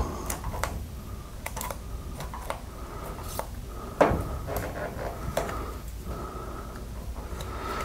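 Irregular small clicks and ticks of a pocket knife's blade working masking tape into the gap between car body panels, with one louder knock about four seconds in.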